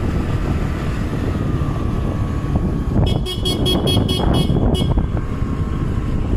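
Motorbike riding along with a steady low rumble of engine and wind on the microphone; about three seconds in, a horn sounds in a quick run of short toots for about two seconds.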